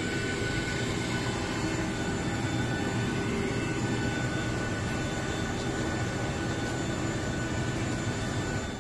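Steady drone of a vehicle in motion, an even rushing noise with a faint steady whine, fading out at the very end.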